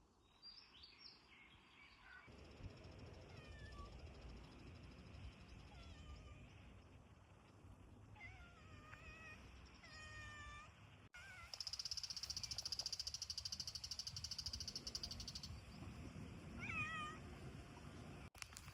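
Domestic cat meowing, several short meows in small groups. In the middle a loud, rapid high-pitched trill runs for about four seconds.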